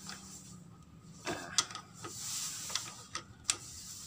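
A handful of sharp metal clicks from a socket wrench working the 12 mm cylinder-head nuts of a Yamaha Vega ZR engine, as the nuts are taken up to full tightness.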